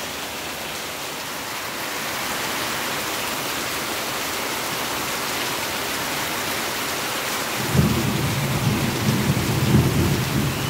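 Heavy rain falling steadily, a continuous hiss. About eight seconds in, a low, uneven rumble of thunder comes in over it.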